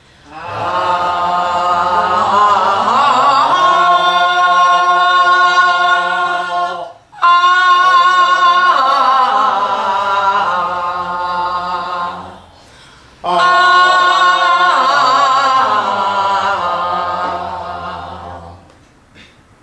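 Women's voices holding long sung 'ah' vowels as a pansori vocal and breath exercise: three long notes of about five to six seconds each, sounded out on the exhale, the pitch sliding up into each note and wavering as it is held, with short breaks for breath between them.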